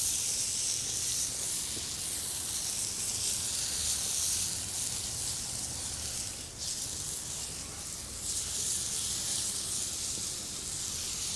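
Aquavit hitting a hot pan of roast pork loin and apples, sizzling with a steady hiss that dips briefly about two-thirds of the way through.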